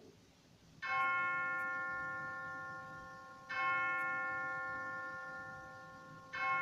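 A bell is struck three times, about two and a half seconds apart. Each stroke rings on and slowly dies away. It is rung at the consecration of the bread during the Eucharist.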